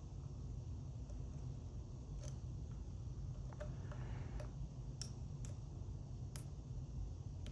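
A lock pick working the wafers of an Illinois Duo wafer padlock: several sharp, separate metal clicks from about two seconds in, with brief scraping around the middle, over a steady low hum.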